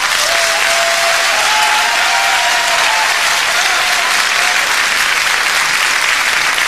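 A large concert hall audience applauding steadily, with a faint wavering tone above the clapping over the first four seconds or so.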